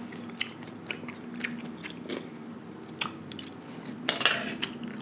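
Close-miked chewing of crunchy raw cucumber, a run of short crisp crunches. About four seconds in, a metal fork scrapes and scoops rice from a foil tray.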